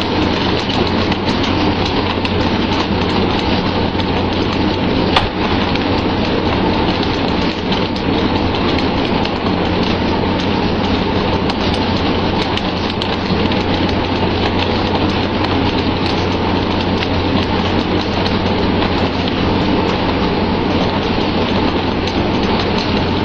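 Steady rush of water pattering onto the sea surface like heavy rain, over a low, even engine hum from the fishing boat; one brief knock about five seconds in.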